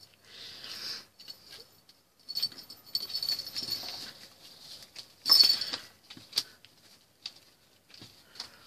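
Plastic lattice cat toy balls with bells inside, rattling and jingling in irregular bursts as a kitten bats them about, loudest about five seconds in.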